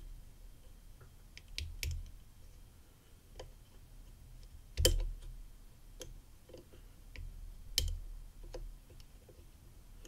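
Disc detainer pick turning the discs inside a Mammoth Security motorbike disc detainer padlock: irregular sharp metal clicks, about one a second, as each disc is rotated toward its gate. The two loudest clicks come about five and eight seconds in.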